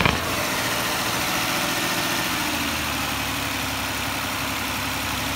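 1999 Infiniti I30's V6 engine running steadily while Seafoam intake cleaner is sprayed into its intake through a vacuum line.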